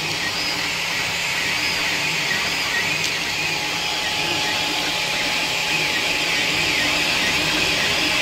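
Creality Ender 5 Plus 3D printer at work: its 5015 blower cooling fans blow steadily, under the stepper motors' whine, which rises and falls in short glides as the print head moves.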